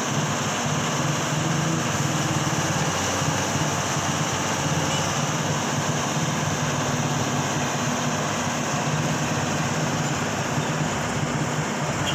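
Heavy vehicle engine running steadily at an even speed, with no change in pitch or level.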